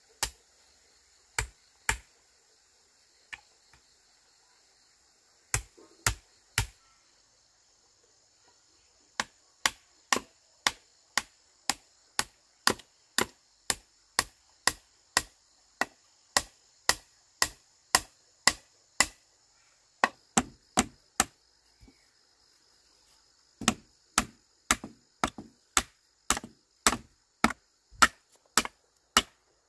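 A hammer knocking on a wooden pole while a crossbar is fixed to an upright post of a pole frame. A few scattered blows come first, then a steady run of sharp knocks about two a second. There is a short pause, then somewhat quicker blows.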